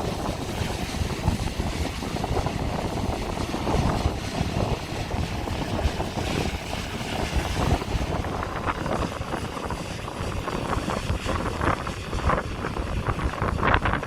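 John Deere combine harvesters running steadily as they cut soybeans, with wind gusting on the microphone.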